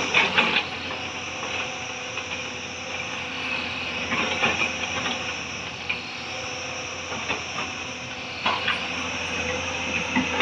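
Hyundai crawler excavator running under load as it digs and swings: steady diesel engine and hydraulic hiss and whine, with occasional knocks and clanks of the bucket against earth and rock.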